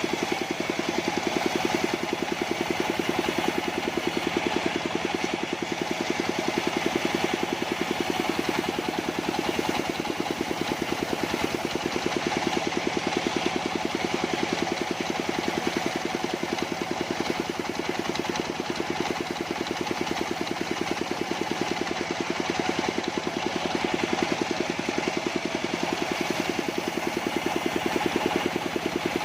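Engine of a portable sawmill running steadily at constant speed, with an even firing pulse.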